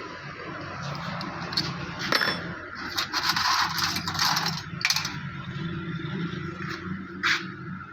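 Small metal parts of a diesel injection pump clinking and rattling against each other and against metal while being handled. It starts with a few separate clicks, turns into a dense bout of clinking, then ends with a couple of sharp single clicks.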